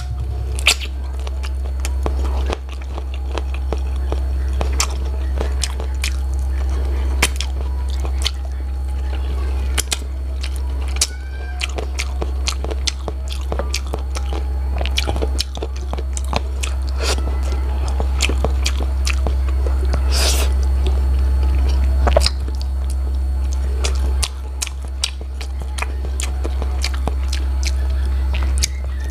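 Close-up chewing and biting of chicken feet: wet, sticky chewing with frequent small clicks and crunches as the skin and joints are gnawed, over a steady low drone.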